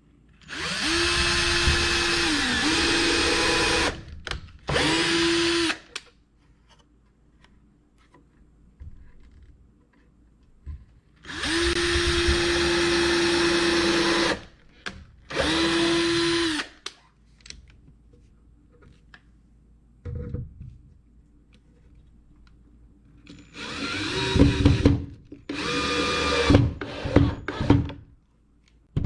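A power drill run in about six bursts of one to three seconds each, with quiet gaps between them, while the wooden birdhouse pieces are drilled and screwed together.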